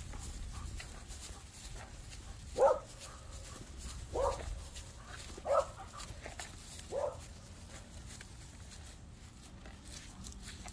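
A dog barking four times, short single barks about a second and a half apart.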